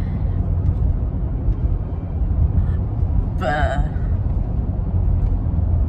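Steady low rumble of a car driving, heard from inside the cabin. About halfway through there is a short drawn-out vocal "buaaaa".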